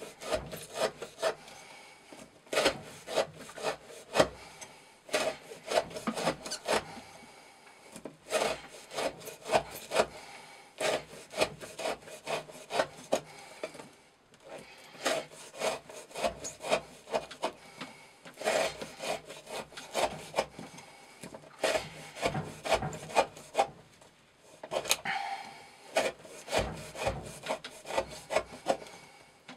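Chris Reeve Sebenza 21 folding knife with an S35VN blade slicing down through rope on a wooden block, cut after cut in an edge-retention rope-cutting test. Each cut is a sharp stroke, mostly one or two a second, with a couple of short pauses.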